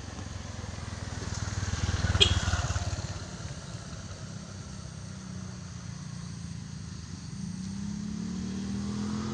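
A vehicle engine running, with a short sharp click about two seconds in; from about seven seconds on the engine note rises in pitch and grows louder.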